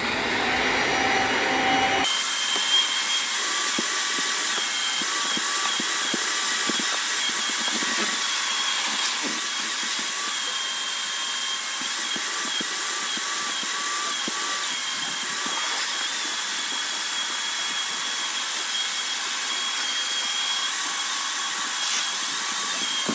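Household vacuum cleaner with a long hose attachment running steadily with a high whine, vacuuming a car's carpeted cargo floor.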